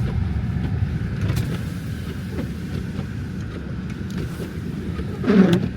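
A car running, heard from inside the cabin: a steady low rumble. A short voice sound comes near the end.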